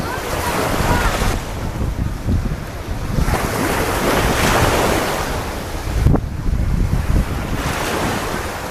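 Small waves breaking and washing up a sandy beach, the wash swelling three times, with wind buffeting the microphone. A single sharp knock about six seconds in.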